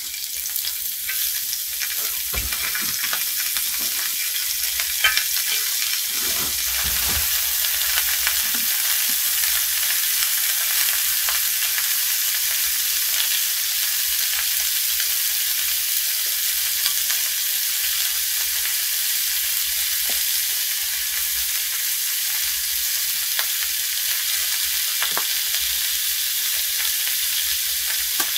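Thin-sliced pork belly sizzling steadily in a cast-iron pan, with a few light clicks scattered through the sizzle.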